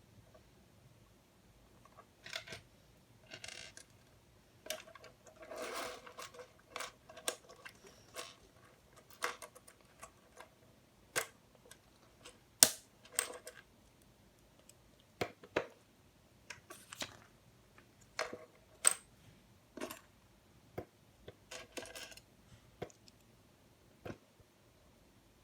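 Plastic LEGO Technic pieces being handled and pressed together: a string of irregular sharp clicks with short bursts of rattling, the loudest click about halfway through.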